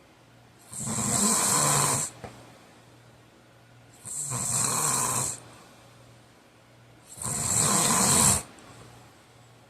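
A man snoring heavily in his sleep: three loud snores about three seconds apart, each lasting over a second, with a rough rattle in them.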